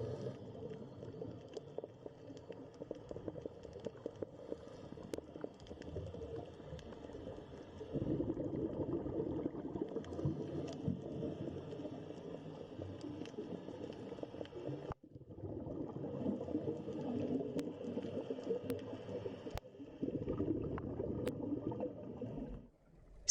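Bubbling, gurgling underwater water sound, changing abruptly a few times along the way as one stretch of ambience gives way to another.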